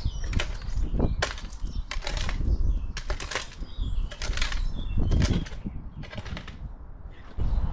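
Shovel scraping and chopping into soil at the bottom of a dug hole, about one stroke a second, with birds singing faintly.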